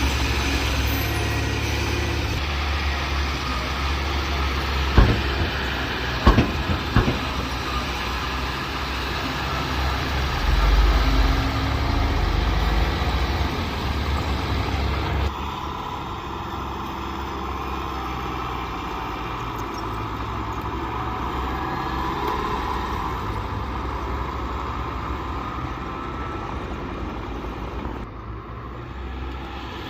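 Diesel engines of heavy earthmoving machinery running steadily, with a few sharp metal clanks about five to seven seconds in. The sound changes abruptly about halfway through and again near the end.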